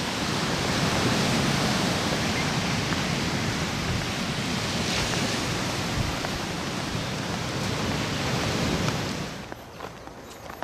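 Ocean surf washing onto the shore: a steady rushing noise that cuts off sharply about nine seconds in, leaving faint footsteps on a dirt path.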